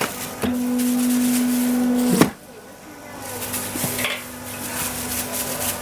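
Electric pancake-sheet machine humming steadily. The hum is loud for under two seconds, breaks off with a sharp knock, then carries on more quietly.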